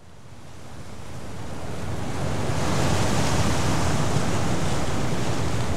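Ocean waves washing, a steady rushing that fades in over the first two or three seconds.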